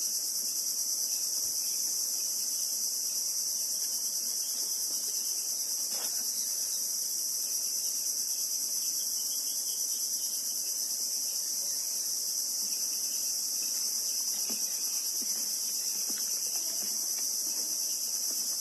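A steady, high-pitched insect chorus drones without a break, with a few faint taps underneath.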